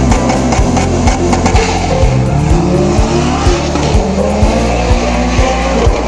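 Background music with a steady beat, mixed with a car engine revving in rising sweeps.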